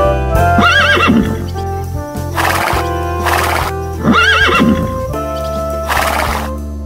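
A horse whinnying twice, the same quavering call that rises and falls, each followed by noisy blowing breaths, over steady background music.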